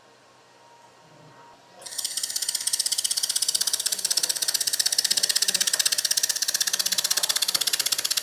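Pulse laser welder firing, a rapid even train of sharp snapping clicks at about ten pulses a second that starts abruptly about two seconds in.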